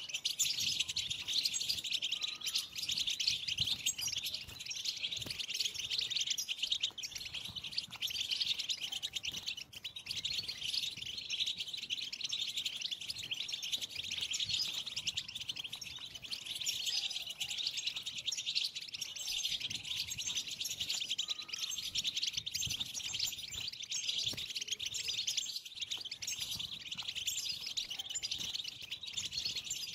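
European goldfinches twittering in a dense, unbroken run of fast, high chatter and trills. This is the excited 'bitbita' twitter of goldfinches.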